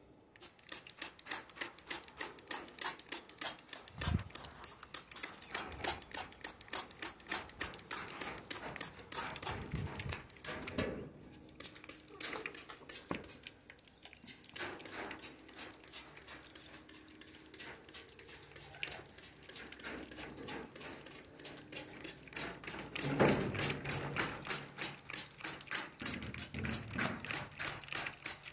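Water mist sprayer hissing in rapid, even spurts, about five a second, pausing briefly twice; a single dull thump about four seconds in.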